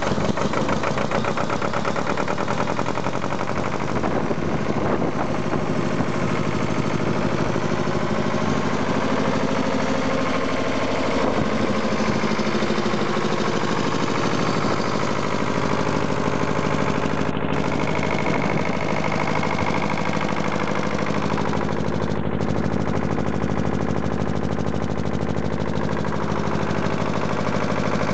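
Lister HA 19 hp air-cooled diesel engine of a mobile generator set running steadily at constant speed, with a fast, even diesel knock.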